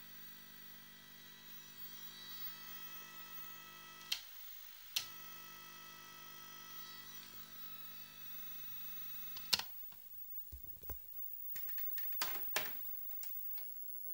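Plastic push-button switches on a Meratronik K950 TV pattern generator clicking as they are pressed: two clicks about a second apart, then a loud one, then a quick run of smaller clicks. Under them a steady electronic buzz of many tones cuts out between the first two clicks and stops for good at the loud click.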